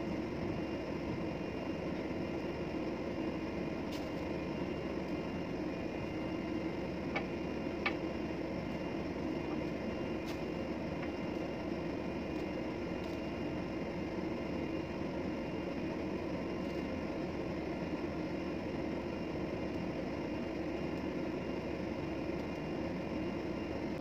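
Steady drone of a ship's running machinery, an even hum that does not change, with a couple of light clicks about seven and eight seconds in.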